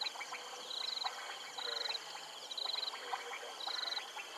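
Frog chorus at a waterhole: a short buzzing trill repeating about once a second over a dense background of quick chirps and clicks.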